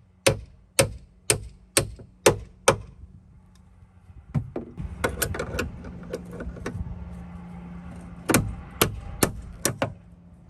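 Hammer strikes on the removal tool, driving a rusted, seized door hinge liner out of a Jeep JK door hinge: about two ringing metal blows a second, six in a row, then a few seconds of lighter clinks and scraping, then five more blows near the end.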